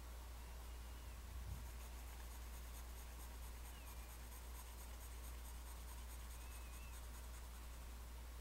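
Graphite pencil scratching on sketchbook paper in quick, repeated short shading strokes, starting about two seconds in, over a steady low hum.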